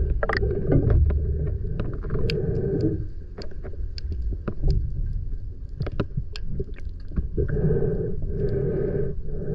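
Underwater sound picked up by a diving camera: a low muffled rumble with a faint droning hum that fades out about three seconds in and returns near the end, and scattered sharp clicks and crackles throughout.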